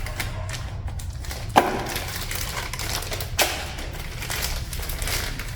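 Two sharp knocks of parts being handled, about a second and a half and three and a half seconds in, over a steady low hum.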